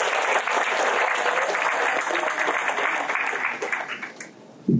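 Audience applauding, the clapping thinning out and dying away about four seconds in, followed by a brief low thump near the end.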